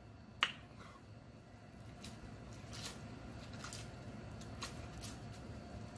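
Faint mouth sounds of a person eating noodles by hand: a sharp click about half a second in, then soft slurping and chewing with small wet clicks.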